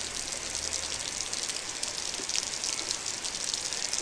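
Heavy rain falling steadily: a dense, even patter of countless drops.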